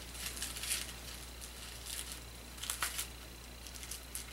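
Faint crinkling and scratching of a small wrapped gift's wrapping as fingers pick at it, trying to get it open, in a few short rustles near the start and about three seconds in.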